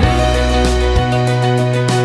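Instrumental background music with sustained low notes and a steady beat.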